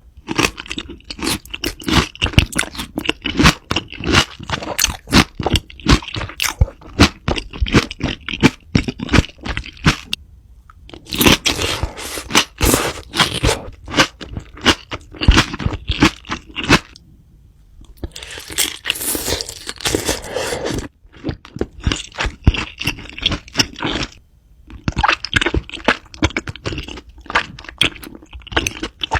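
Close-miked crunchy food being bitten and chewed, a dense run of sharp crunches with short pauses between mouthfuls.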